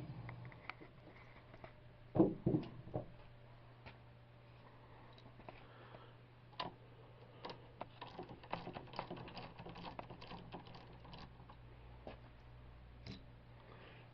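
Scattered light clicks and taps of a hand tool on the negative battery terminal clamp as it is loosened and taken off the post, with a few louder knocks about two seconds in.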